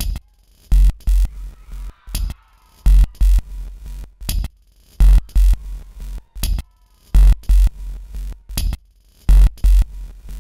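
Sparse electronic dance track: a drum-machine beat of two deep kicks followed by a sharper hit, repeating about every two seconds, with near-quiet gaps and a faint synth tone between.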